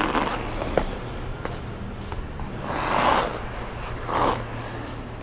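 Hockey skate blades scraping and carving on ice in several separate strokes, each a short rushing swell, with a single sharp tap a little under a second in.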